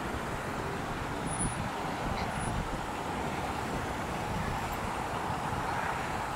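Steady road traffic noise, an even rush with no distinct events.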